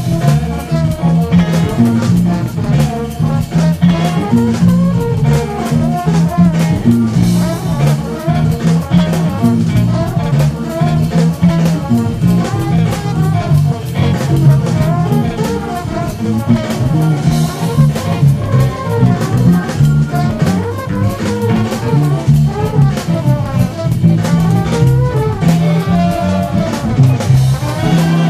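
Funk music: an electric bass plays a repeating syncopated low riff over drum kit and horns.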